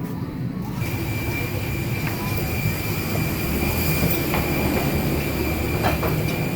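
A vehicle running steadily, heard from inside: a low rumble, joined about a second in by a steady high whine, with a few faint clicks.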